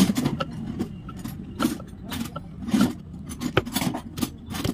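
Irregular clicks, knocks and scrapes of an engine side cover being handled and fitted onto a Honda X-Blade motorcycle engine over the magneto coil plate, about two a second.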